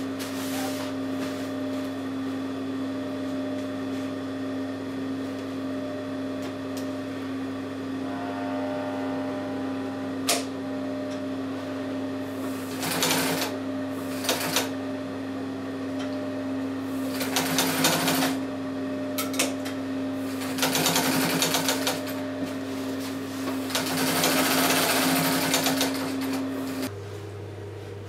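Singer semi-industrial sewing machine stitching webbing onto fabric in several short runs, with a steady motor hum under them that cuts off near the end.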